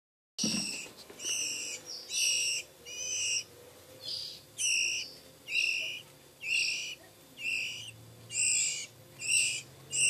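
Oriental magpie-robin (kacer) nestling giving short, high, raspy begging calls, a little more than one a second. It is the sound of a hungry chick asking to be fed.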